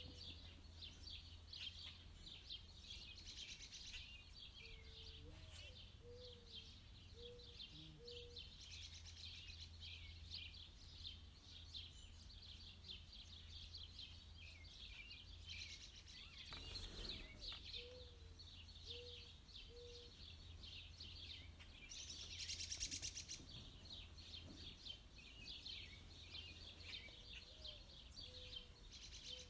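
Faint, continuous high peeping of Canada goose goslings, with a few short low notes in small runs of three or four.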